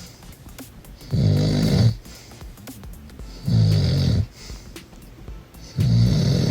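A man snoring loudly in his sleep: three heavy snores about two and a half seconds apart, each lasting under a second.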